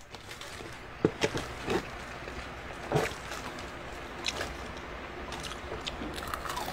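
Sheets of dry seasoned laver crinkling and crackling as they are handled and torn over sauced noodles, with a few sharp crackles and some soft wet sounds among them.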